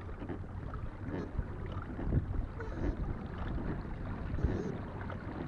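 Water sounds around a kayak moving slowly on calm sea water, with a couple of brief faint splashes.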